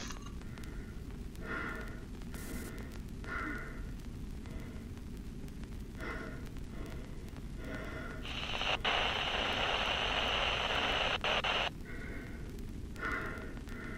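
Radio static: a steady low rumble with short crackly bursts every second or so, and a louder hiss starting about eight seconds in and lasting about three seconds.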